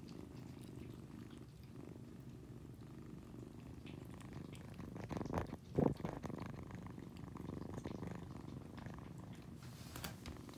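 Young tabby kitten purring steadily in a continuous low rumble, with a brief thump about halfway through.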